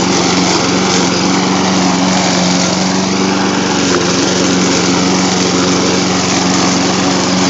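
Troy-Bilt 21-inch walk-behind lawn mower running steadily under load as it cuts tall brome grass.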